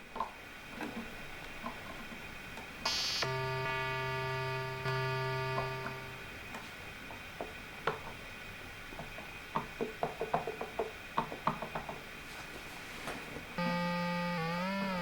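Synthesizer notes played from the freshly reassembled Arturia KeyStep controller to test that it still works: a held note a few seconds in, then a run of small plastic clicks from its keys and buttons, then a note whose pitch wobbles up and down near the end.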